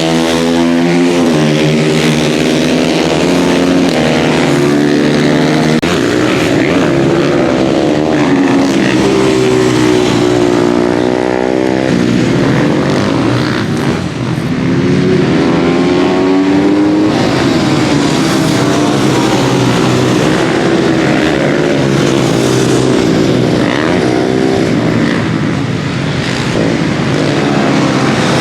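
Several supermoto racing motorcycles running hard on track, their engines revving up and down through the gears with overlapping rising and falling pitch.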